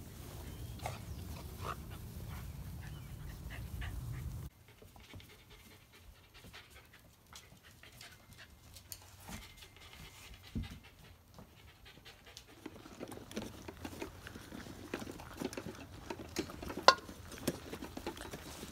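Six-and-a-half-week-old Briard puppies, heard first over a steady low rumble that cuts off suddenly, then faint small clicks of dry kibble in a steel bowl. Near the end the puppies are eating at steel bowls, with busy small clicks and scuffles and one sharp clink.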